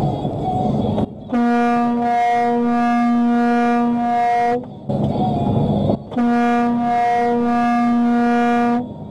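Semi truck's air horn blown in two long blasts of about three seconds each, one steady pitch, warning off a box truck that has pulled out in front. The truck's engine and road noise run between the blasts.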